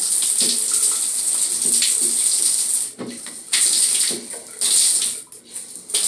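Water running through a freshly rebuilt Delta Monitor tub/shower valve: a steady hiss of flow that cuts out briefly three times in the second half.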